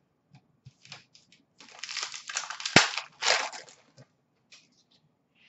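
Plastic card-pack wrapper crinkling and tearing as a pack of hockey cards is opened, with one sharp snap near the middle and light ticks of cards being handled before it.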